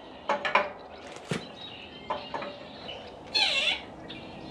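Sharp metallic clicks and knocks from lowering an engine on a shop crane into a vehicle chassis, several in the first two and a half seconds. About three and a half seconds in comes a short squeal that dips and then rises in pitch.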